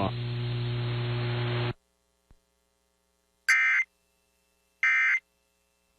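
Weather-radio broadcast hum and hiss that cuts off about two seconds in. Then come two short, identical digital data squawks about 1.3 s apart: EAS SAME end-of-message bursts marking the end of the alert.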